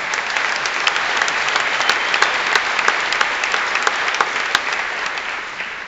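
Large auditorium audience applauding: a dense wash of clapping with sharper individual claps close by, fading away near the end.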